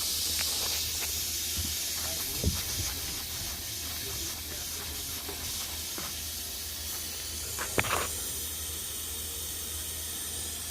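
Neglected HVAC unit still running: a steady airy hiss over a low hum, with a sharp click about two and a half seconds in and another near eight seconds.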